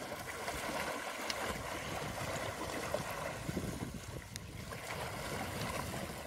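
Elephant calves swimming and wallowing in a pond: continuous sloshing and splashing of water churned by their bodies and trunks, with a few small sharp splashes.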